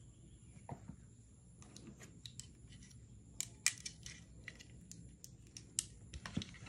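A coiled cable and a plastic plug-in power adapter being handled and laid down: scattered light clicks and taps of plastic plugs and casing, with the sharpest taps about three and a half seconds in and again near six seconds.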